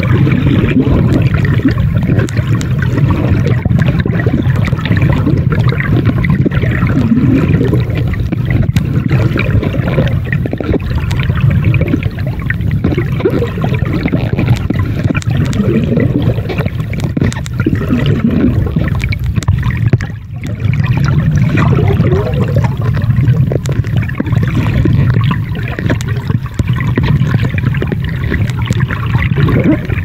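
Underwater water noise: steady sloshing and gurgling of water around a camera filming on a shallow reef, with small bubbling sounds and a brief drop about twenty seconds in.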